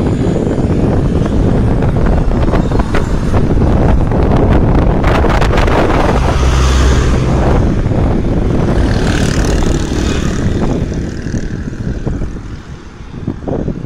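Passenger train rumbling past below, mixed with heavy wind buffeting on the microphone; the noise dies down over the last few seconds.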